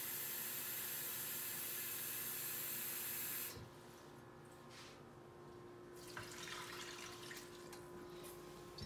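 Kitchen faucet running into a glass bowl in a stainless steel sink, shut off about three and a half seconds in. After that, quieter, faint sounds of the water being poured into the electric pressure cooker's pot.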